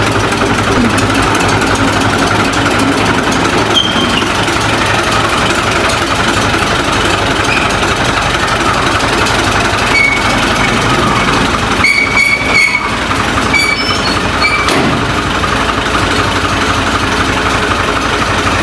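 Farm tractor's diesel engine running steadily as the tractor drives off and moves across the yard. A few short high squeaks come around the middle.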